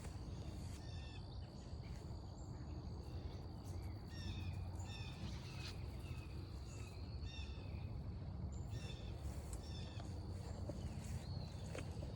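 Forest birds calling in many short, falling chirps over a steady high-pitched insect drone, with a low rumble underneath.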